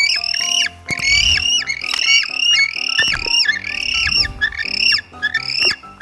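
African penguin calls: a fast run of short, high, arching calls, about two or three a second, over background music with a steady bass.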